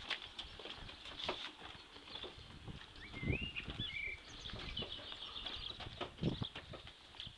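Wheelbarrow loaded with kettlebells and weight plates being pushed over block paving: irregular knocks and clunks from the wheel, load and footsteps. A bird chirps briefly about three seconds in.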